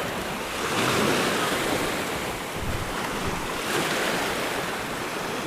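Sea waves washing onto the shore, swelling twice, with wind buffeting the microphone.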